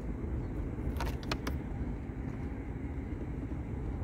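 Steady low rumble, with a quick run of sharp clicks about a second in.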